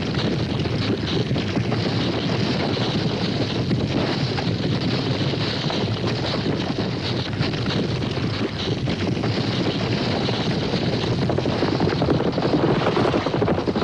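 Cavalry charge: many horses galloping together, their hoofbeats merging into a dense, continuous rumble.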